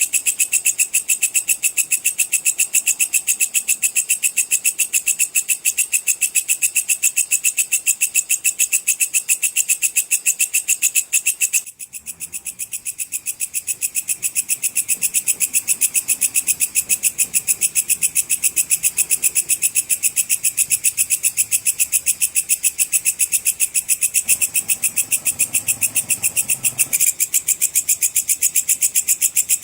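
A katydid (bush cricket, 'belalang pedang') stridulating in a fast, even, high-pitched chirping trill. It breaks off for a moment about twelve seconds in, then carries on.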